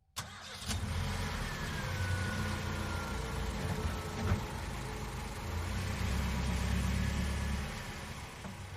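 A motor vehicle's engine running, a low rumble with a faint whine that slides down in pitch, starting suddenly and fading near the end.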